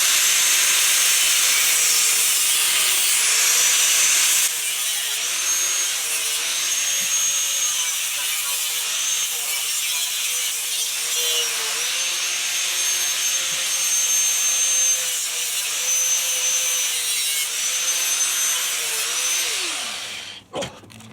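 A power tool cutting through the exhaust pipe of a Honda CT110 postie bike, running steadily with its motor pitch dipping now and then under load. Near the end the motor winds down and stops.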